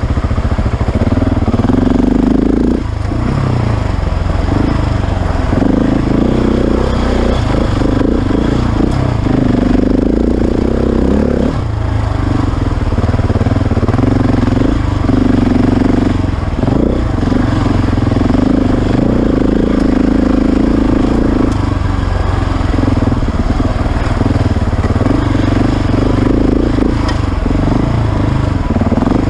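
KTM 690's single-cylinder four-stroke engine running under way on a dirt trail, the throttle opening in stretches of a few seconds with short let-offs between them.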